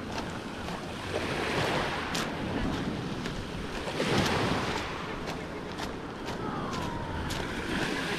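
Small waves breaking and washing over a beach of small pebbles, the surf swelling about a second in and again about four seconds in, with scattered sharp clicks.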